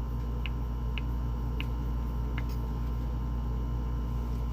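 Steady low hum of room noise, with a few faint short ticks roughly every half second.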